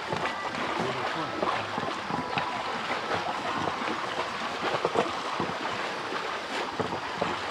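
Floodwater splashing and sloshing as a pair of bullocks wade through it, pulling a loaded wooden cart. The sloshing keeps up with many small splashes.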